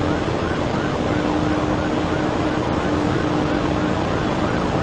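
Steady rush of a police patrol car running flat out at about 120 mph: engine, tyre and wind noise heard from inside the cabin, with a faint steady hum underneath.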